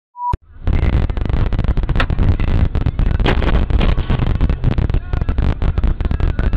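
A short beep, then loud, distorted, crackling rumble from a dashcam's own microphone inside a car, running without a break.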